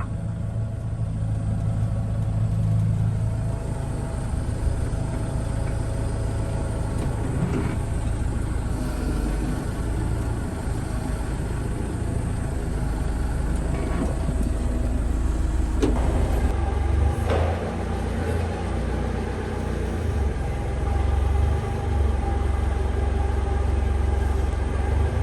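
A tractor's engine running steadily, with a couple of short knocks about sixteen and seventeen seconds in.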